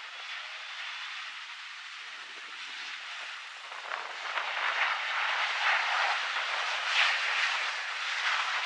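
Jet engine noise from a McDonnell Douglas MD-82's rear-mounted turbofans as the airliner lands: a steady rushing sound that gets louder about four seconds in.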